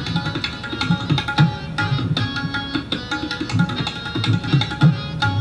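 Tabla played very fast: dense rapid strokes on the treble drum with recurring deep bass strokes on the bayan, in a rela imitating a horse's galloping gait.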